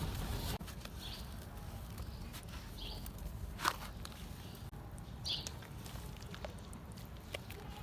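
Red dirt and concrete chunks soaking in water and crumbling, with scattered small clicks and crackles over a low steady rumble, and one sharper crack about four seconds in.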